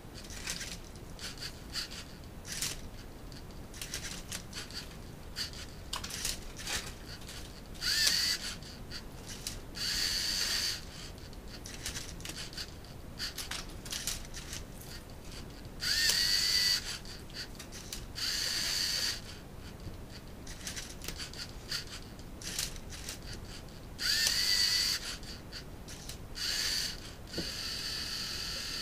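LEGO Mindstorms Rubik's-cube-solving robot at work: its servo motors whir in repeated bursts of about a second, some starting with a rising whine, between a steady clatter of plastic clicks as the cube's faces are gripped and turned.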